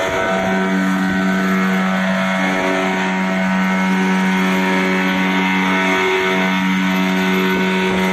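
Twin small outboard motors, one a 9.9 hp, running steadily at high throttle as the boat speeds over the sea. A steady engine hum with the rush of water and wind over it.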